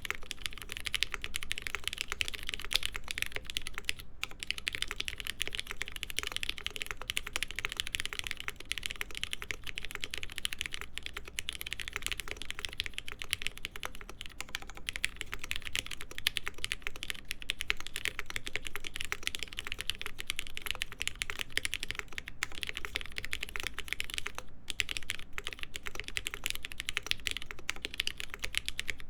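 Continuous fast typing on a Mode SixtyFive stack-mount mechanical keyboard with lubed, films-fitted Cherry MX Black linear switches, POM half plate and JTK Hana keycaps: a dense run of key clacks with a few brief pauses.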